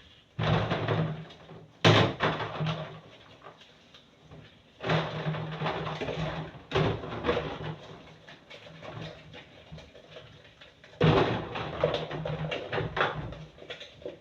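Kitchen cleaning noises: bursts of handling, clatter and knocks, with one sharp knock about two seconds in. They sound like cupboards and doors being worked.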